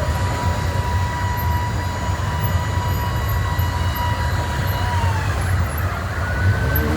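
Police vehicles' engines running in a steady low rumble, with a siren holding one high tone that winds down about five seconds in.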